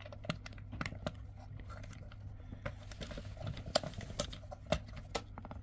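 Light, irregular clicks and rubbing as the rubber boot of a new HT lead is wiggled and pressed onto a distributor cap tower, working it toward seating.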